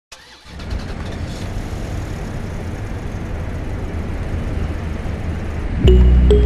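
Road traffic: vehicle engines rumbling steadily, slowly growing louder. Music cuts in near the end.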